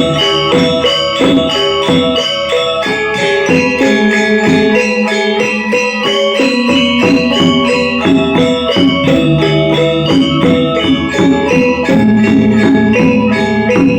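Balinese gamelan angklung ensemble playing: struck metallophones ringing in rapid, steady interlocking strokes.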